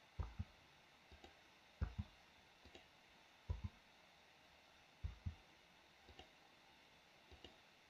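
Computer keyboard spacebar tapped repeatedly, each tap a quick double click of the key going down and up, about eight times at uneven intervals. Faint room tone in between.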